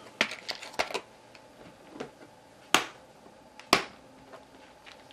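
Plastic clicks and knocks from a clear plastic compartment organizer of game tokens being handled and turned over: a cluster of light clicks in the first second, then two sharp clicks about a second apart near the middle.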